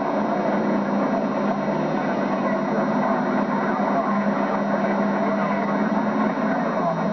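Demolition derby car engines running together in a steady, dense din with a low drone, heard through a camcorder's built-in microphone.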